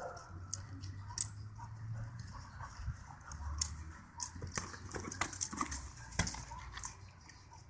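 Dog playing with a soccer ball on grass: scattered light scuffs and clicks of teeth and paws against the ball, over a low rumble.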